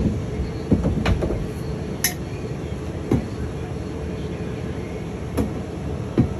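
Loose items being handled inside a travel trailer, giving scattered knocks and clicks, about seven in six seconds, over a steady low hum.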